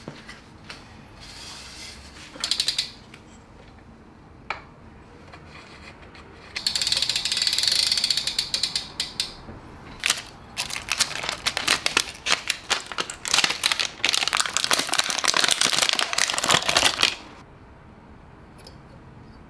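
Brompton T Line folding bike's freewheel ratchet clicking rapidly as the crank is turned by the pedal, in two runs of several seconds with a short burst before them.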